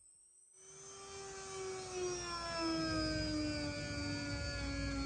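Hand-held rotary tool with a buffing wheel running against a metal pistol frame: a steady motor whine that sets in about half a second in, grows louder over the next second or two, and slowly drops in pitch.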